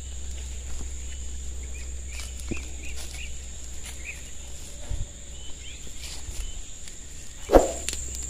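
Outdoor field ambience: a steady high insect drone with a run of short bird chirps a couple of seconds in, and light steps and rustling through the plants. A single loud thump near the end.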